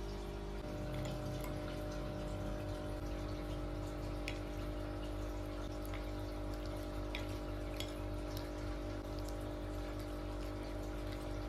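A few light clinks of a metal fork against a ceramic plate, over a steady bed of sustained tones.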